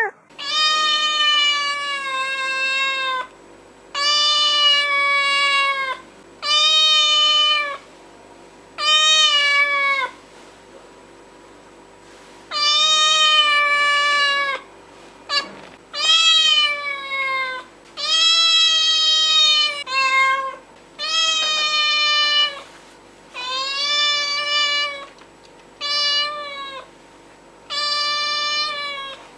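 A cat meowing over and over, about a dozen long drawn-out meows of one to three seconds each with short pauses between them, each call sliding down slightly in pitch at the end.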